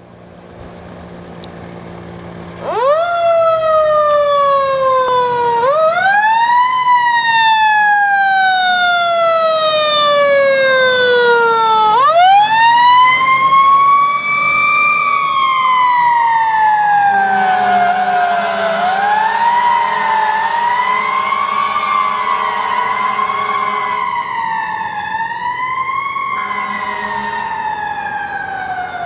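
Fire engine siren starting up about three seconds in over a low engine rumble. It climbs quickly to a high wail and slides slowly down, and is wound up again twice. Toward the end it rises and falls in shorter swells.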